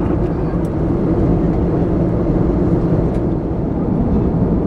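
Steady cabin noise of an Airbus A321neo in cruise: a constant drone of engines and airflow, strongest in the low end, with a few faint ticks.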